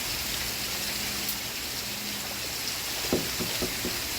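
Steady rain, an even hiss of falling drops. A few faint, brief low sounds come through about three seconds in.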